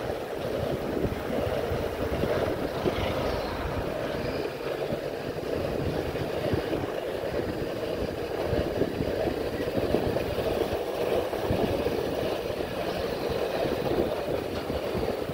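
Steady rushing noise of a moving bike ride, with wind buffeting the microphone.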